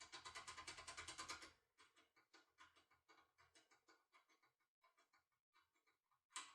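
Faint, rapid metallic scratching and ticking of a thin lock pick working the pins inside a cylinder lock, louder for the first second and a half, then softer, with one sharper click near the end.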